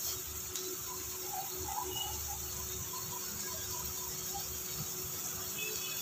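Thick chicken curry gravy simmering in a kadai, with faint scattered bubbling pops during the first few seconds over a steady hiss and a faint steady hum.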